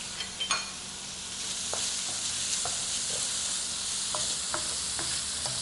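Shrimp with minced garlic and ginger sizzling steadily in hot oil in a pan as they are stir-fried, with a few light clicks scattered through.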